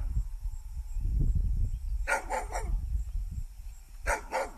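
A dog barking: three quick barks about two seconds in, then two more near the end, over a low rumble.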